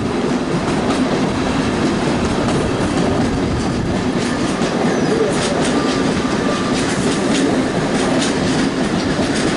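1980s Comeng suburban electric train running past, its wheels clicking over rail joints in an uneven series over a steady rumble.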